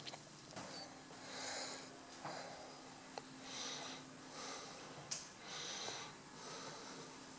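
A person breathing close to the microphone, soft hissy breaths about every two seconds, over a faint steady hum and small-room tone, with a couple of small clicks.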